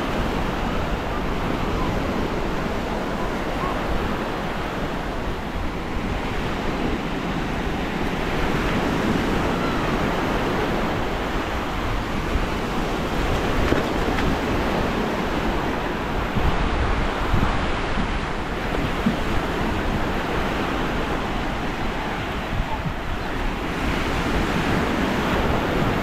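Gentle surf washing onto a sandy beach, mixed with wind buffeting the microphone: a steady rushing noise.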